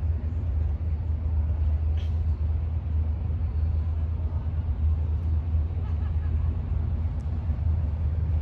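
Diesel locomotives of an approaching passenger train working in the distance, a steady low rumble with little above it.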